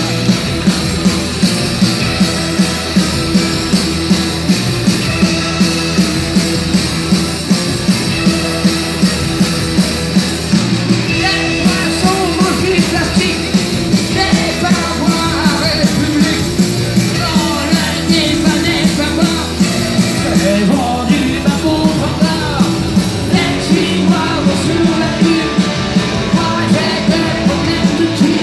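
Punk rock band playing live and loud: drums keeping an even beat of about two hits a second under electric guitars, with a singer's voice standing out more from about halfway through.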